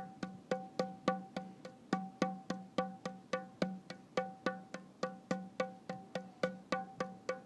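Music: a steady pulse of short plucked or tapped notes on the same few pitches, about four a second.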